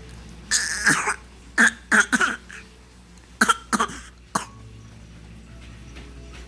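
Fake coughing: a run of short, sharp coughs in three bunches over about four seconds, with a pause of about a second between bunches.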